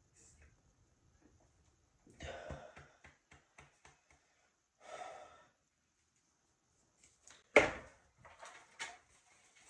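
A woman breathing out heavily and sighing twice after spraying her throat, the first exhale trailing off into a few short huffs. A single loud thump comes about three-quarters of the way through, followed by a few lighter knocks.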